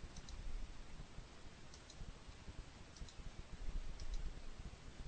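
Faint computer mouse clicks: several short press-and-release ticks about a second apart, over a low background rumble.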